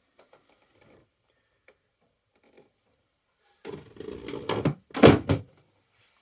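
Quiet with a few faint ticks, then about three and a half seconds in a quick run of knocks and thuds from fittings being handled inside a small yacht cabin, loudest about five seconds in.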